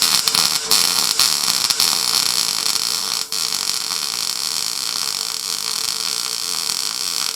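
Electric welding arc crackling and hissing steadily as a bead is laid on steel, with a few sharp pops in the first seconds and a brief break about three seconds in.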